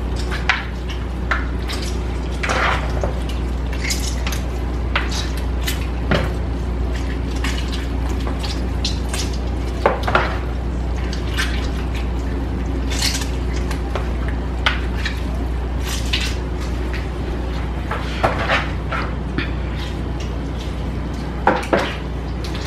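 Hands handling and rubbing raw chicken pieces in a bowl in a stainless steel sink as they are cleaned with vinegar and citrus, giving irregular small clicks and knocks against the bowl and sink. A steady low hum runs underneath.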